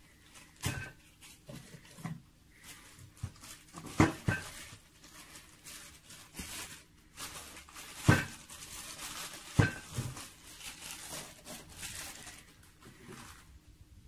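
Hands unpacking an eyepiece: several sharp knocks of hard plastic canisters and the eyepiece set on a tabletop, with rustling and crinkling of the plastic bag it is wrapped in between them.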